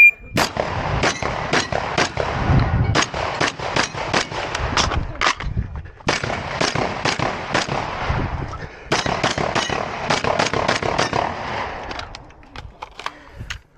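A shotgun fired in fast strings of shots, about two to three a second, with two short breaks about five and nine seconds in. A few fainter clicks and knocks follow near the end.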